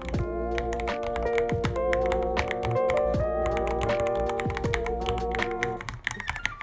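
Typing on a Ducky One 3 mechanical keyboard: a quick, uneven run of keystroke clicks over background music. The music breaks off briefly near the end, leaving the keystrokes on their own.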